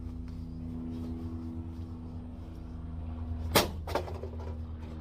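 A steady low mechanical hum, with a sharp bang about three and a half seconds in and a lighter knock just after it.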